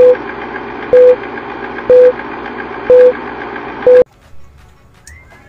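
Film-leader countdown sound effect: a short, loud beep once a second, five beeps in all, over steady film-projector noise, all cutting off suddenly about four seconds in.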